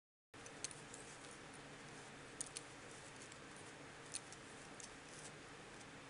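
Aluminum double-pointed knitting needles clicking faintly against each other now and then as stitches are knitted, about half a dozen light ticks over a low steady hiss.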